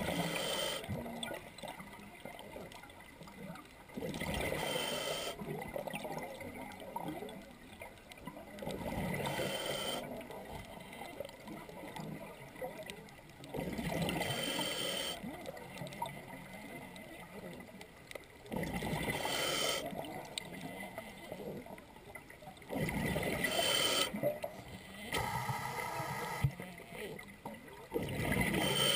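A scuba diver breathing through an open-circuit regulator underwater: a rush of exhaled bubbles about a second long comes roughly every four to five seconds, with a faint hiss between the breaths.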